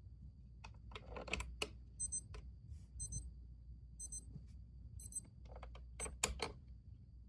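Radio alarm clock's alarm beeping four times, about once a second, high-pitched. There are clusters of clicks and knocks before and after the beeps.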